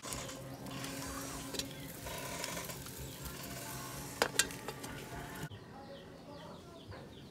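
Wood fire crackling under a covered metal pot of simmering fish, with two sharp clinks of the pot lid about four seconds in. The last couple of seconds are quieter and duller.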